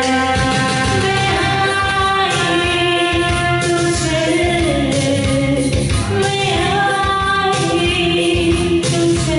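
A woman singing a song into a handheld microphone over a recorded karaoke backing track, amplified through the hall's PA.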